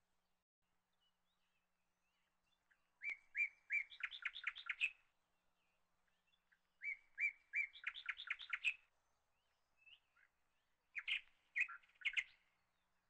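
A songbird singing: two phrases of a few spaced notes running into a quick trill, then a shorter burst of notes near the end.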